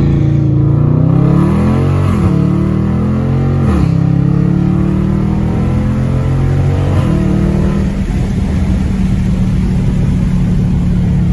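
Dodge Challenger R/T's 5.7 L HEMI V8 with a mid muffler delete, accelerating with its exhaust note rising. The pitch drops sharply at two upshifts, about two and four seconds in, and it settles into a steady drone from about seven seconds.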